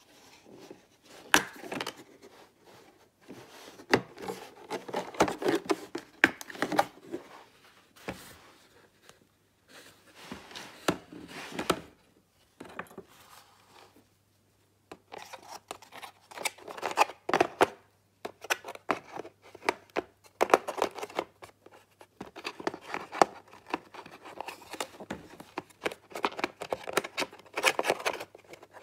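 Fingers handling a pink plastic tool kit in its moulded case: irregular clicks, taps and rattles of hard plastic and small metal screwdriver bits, with a quieter spell about halfway through.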